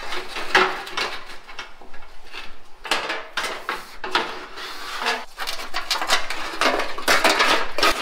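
A metal radiator being manoeuvred into its steel radiator support on an FJ40 Land Cruiser: repeated clanks and knocks of metal on metal with scraping between them, the loudest knocks about half a second, three seconds and seven seconds in.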